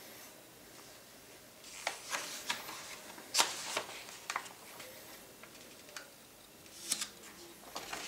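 Pages of a paper instruction booklet being turned by hand: several short paper rustles and flicks, the sharpest about three and a half seconds in.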